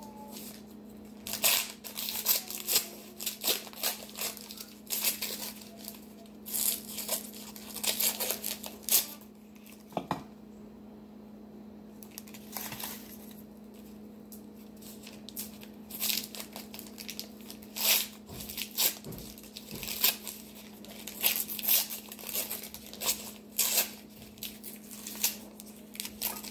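Paper wrappers of ice cream sandwiches being torn open and crinkled by hand, in irregular clusters of crackling and rustling, over a steady low hum.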